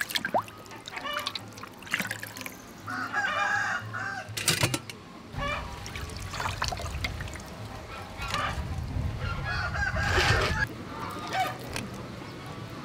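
Water splashing and pouring as raw whole ducks are washed by hand in a metal basin and rinsed under a running stream. Domestic fowl call several times in the background, about three seconds in and again around nine to eleven seconds.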